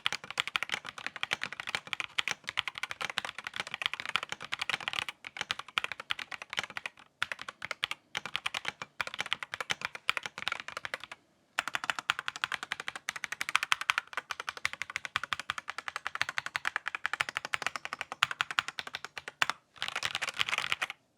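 Fast typing on an Akko PC75B Plus Air mechanical keyboard fitted with Akko Yellow V3 Pro linear switches and OSA-profile keycaps: a dense, continuous run of key clacks broken by a few brief pauses.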